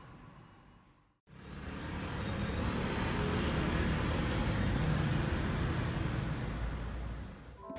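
Steady road-traffic noise, a dense rumble of cars passing, starting abruptly about a second in and fading near the end.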